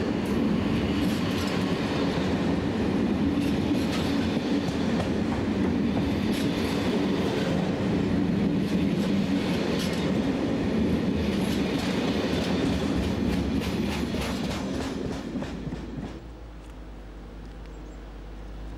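Flat wagons of a freight train loaded with track sleepers rolling past close by, the wheels clattering over the rail joints in repeated clicks. The noise drops away about sixteen seconds in as the end of the train passes.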